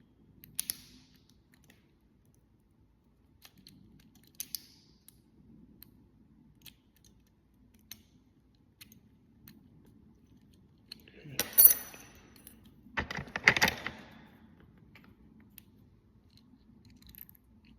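Small metal lock parts being handled while a lock cylinder is taken apart: scattered light clicks, then two louder clattering rattles of small metal pieces about two-thirds of the way through.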